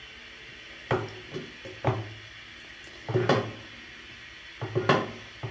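Glass pot lid clunking and knocking against the rim of a metal pot in several short bursts while it is pressed down and its steam hole is plugged.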